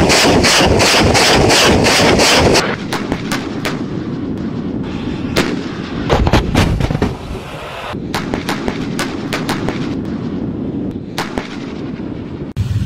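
Weapons fire. A rapid, evenly spaced string of shots, about five a second, runs for the first two and a half seconds, followed by scattered single shots and blasts at irregular intervals.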